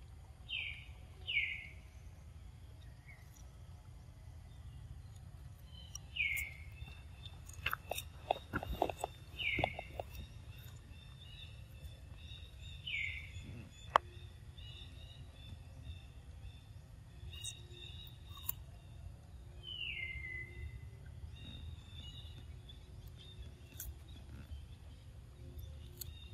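A macaque crunching and chewing cucumber, with a run of crisp crunches about eight to ten seconds in and a single sharp click a little later. A bird gives short downward-sliding calls every few seconds, over a steady low rumble of outdoor noise.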